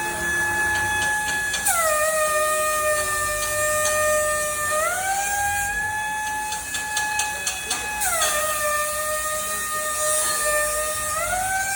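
ATI CGV pneumatic compliant angle grinder whining at speed over a hiss of air. Its pitch sags twice, about 2 s and 8 s in, as if loaded by grinding, and climbs back after about three seconds each time.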